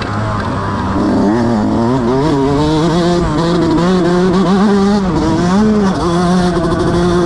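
Motocross bike engine running under throttle, its pitch rising and falling as the rider works the throttle, with two short drops in pitch in the second half.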